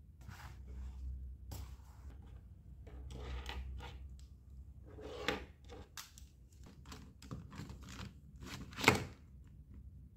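Faint scattered knocks, taps and rustles of small objects being handled and set down on a desk, with one sharper knock about nine seconds in.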